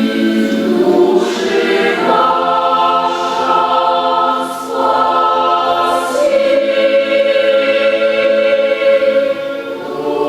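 An a cappella choir singing an Orthodox troparion in held chords that change every few seconds, with a few soft hissing consonants of the text.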